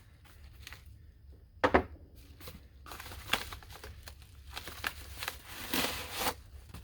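A cardboard box being opened by hand without a knife: one sharp tear about a second and a half in, then scattered rustling as the packaging is pulled open.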